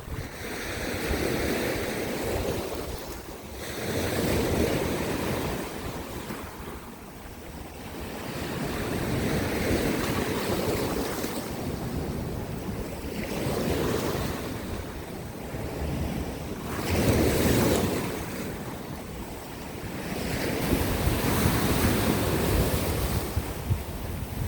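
Sea waves breaking and washing on rocky shore, a surge of surf every few seconds between quieter lulls, with wind buffeting the microphone.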